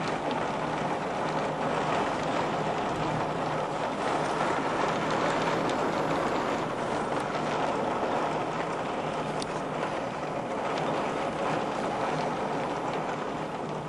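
Storm wind and a heavy downpour heard from indoors behind a window, a steady rushing noise with a few faint taps of rain on the glass.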